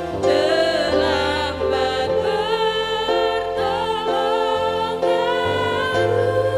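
A Christian worship song with sung vocals over instrumental backing, its bass notes changing about once a second.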